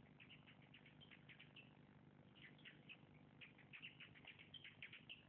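Near silence with faint, quick bird chirps scattered through, growing busier in the second half, over a low steady hum.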